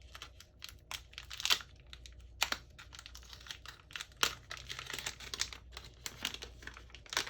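Plastic packaging being handled and unwrapped around a replacement phone screen: irregular crinkling and rustling with scattered sharp clicks.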